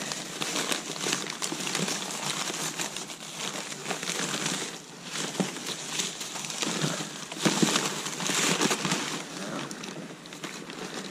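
Crumpled brown kraft packing paper and a white paper wrapper rustling and crinkling as hands pull them out of a cardboard box. The crinkling is continuous and uneven, with a louder stretch about eight seconds in.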